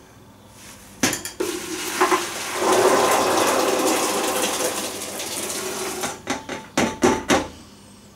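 Boiled maple peas and their cooking water poured from a stainless steel saucepan into a plastic bucket: a metal clank about a second in, a few seconds of pouring and splashing, then several sharp knocks near the end as the pan is emptied.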